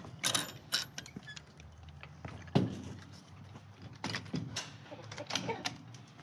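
Metal latch on a wooden chicken-run gate being worked: a series of sharp clicks and knocks, the loudest about two and a half seconds in.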